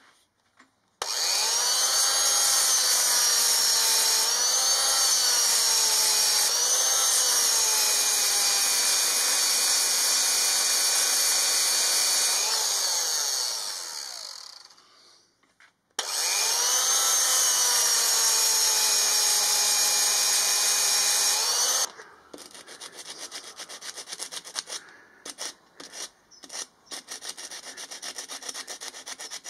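Electric grinder with a flat disc working down a weld, its motor pitch dipping and recovering as it bites. It runs in two long spells, spinning down before a short break between them, then gives way to quieter, irregular rasping strokes like a hand file.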